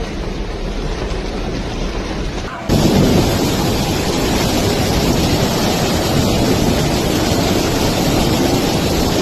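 Loud rushing, rumbling floodwater, cutting abruptly about two and a half seconds in to a louder, fuller rush.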